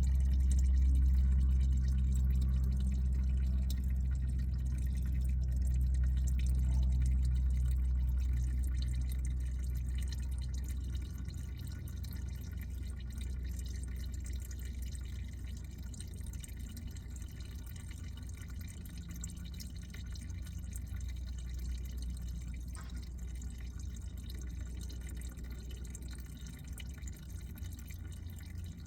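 Used engine oil draining from a car's oil pan into a catch pan, a steady stream and drip that gets quieter over the first ten seconds or so as the flow tapers off.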